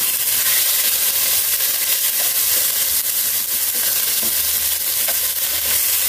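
Sliced beef sizzling in hot oil with fried garlic in a pot while it is stir-fried with chopsticks: a steady, dense sizzle.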